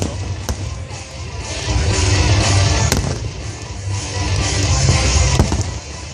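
Fireworks display bursting, with music playing along: sharp bangs about half a second in, near three seconds and again near the end, over a swelling rumble and crackle.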